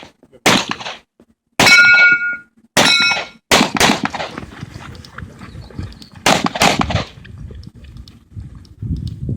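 Handgun shots, about seven at an uneven pace, two of them followed by the metallic ringing of a hit steel target.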